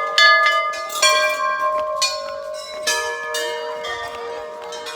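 Hanging temple bells being rung one after another, struck about once a second for the first three seconds. Their tones overlap and ring on, fading slowly toward the end.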